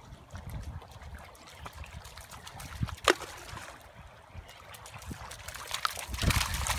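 Shallow river water trickling over stones, with a Shiba Inu's paws splashing through the shallows, louder near the end. A single sharp click about three seconds in.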